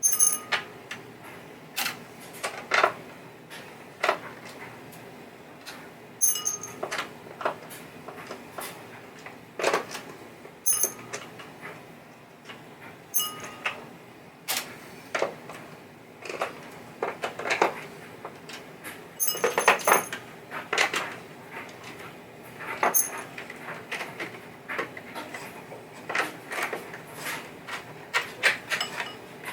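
Irregular clicks, knocks and light metal clinks of a nut driver at work and small nuts and parts being taken off a pinball playfield, some clinks ringing briefly. They come every second or so, busiest about twenty seconds in.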